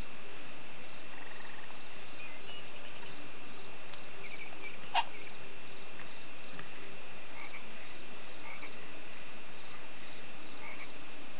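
A baby sucking its thumb: short runs of soft, quick, wet clicks over a steady hiss, with one sharper click about five seconds in.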